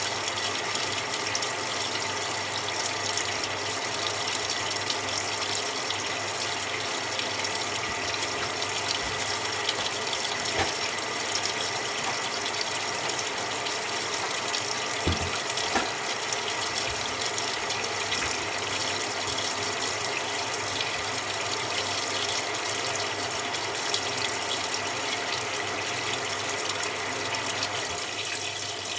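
Samsung 6.5 kg top-loading washing machine filling its tub with cold water: a steady rush of water pouring in from the inlet, with a couple of short knocks about halfway through.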